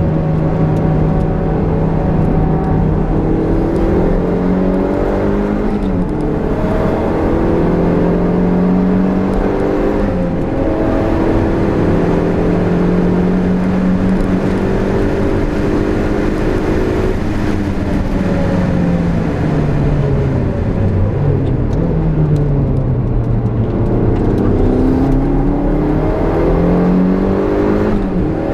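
Turbocharged Toyota MR-S's 1.8-litre four-cylinder engine at hard track pace, heard from inside the cabin: the revs climb and drop again and again through a run of gear changes, over steady road and wind noise.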